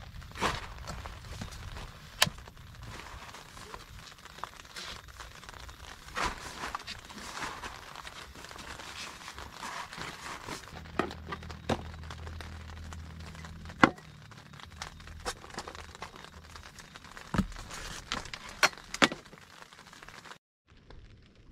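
Crinkling and rustling inside a tent, with scattered sharp clicks and taps. A low hum comes in for several seconds in the middle.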